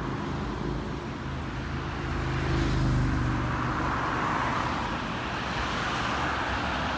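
Road traffic: a passing vehicle's engine hum swells to its loudest about three seconds in, then gives way to steady traffic noise.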